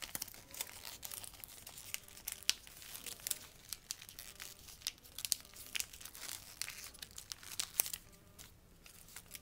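A square of paper being folded and creased by hand into an origami flapping bird, with irregular crinkles and sharp crackles as a flap is opened and pulled out.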